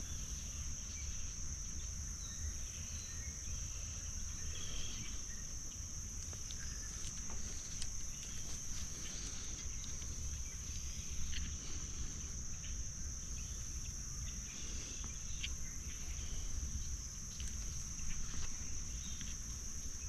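A steady, high chorus of crickets, with a low rumble underneath and a few faint clicks.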